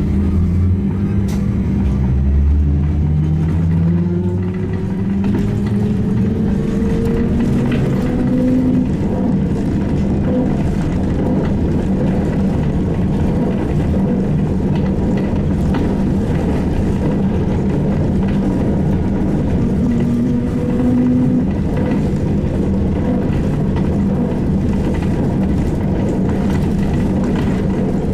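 SVARZ-MAZ-6235.00 trolleybus under way: the whine of its electric traction motor rises in pitch as it accelerates over the first eight seconds or so, then settles into a steady hum over road rumble. A shorter rise in the whine comes about twenty seconds in.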